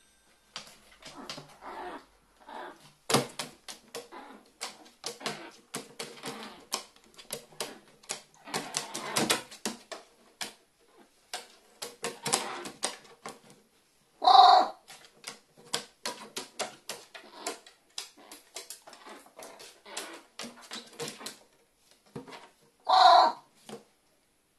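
Carrion crow moving about on a plywood board: many quick taps and scrapes of its claws and beak on the wood, with crinkling from the white strip it holds in its beak. Two short, loud caws, one about halfway through and one near the end.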